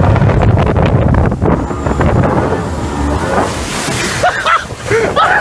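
Wind on the microphone over a speedboat running fast across the water, then about three and a half seconds in a hissing rush of water as the bow dives under and a wave floods over the windshield onto the deck. Voices cry out in the last second.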